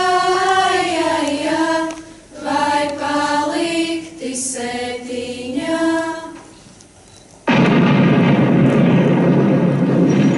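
A choir singing a slow melody in unison, in short phrases with brief breaths between them, dying away about six and a half seconds in. About a second later a loud recorded sound effect of artillery fire cuts in suddenly as a steady rumbling din.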